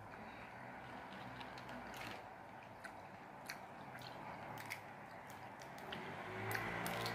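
Lychee shells cracked and peeled by hand, giving scattered crisp clicks and crackles, with close-up chewing of the soft fruit.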